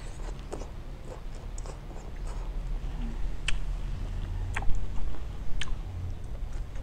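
Close-miked chewing of a lightly blanched shrimp, with wet mouth clicks throughout and a few sharper, louder clicks in the second half.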